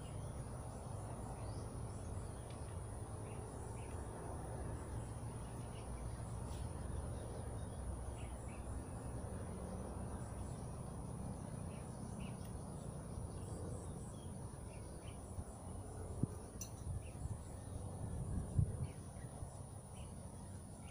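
Insects droning steadily in a continuous high-pitched hum, with scattered short bird chirps over a low rumble. A couple of short knocks sound near the end.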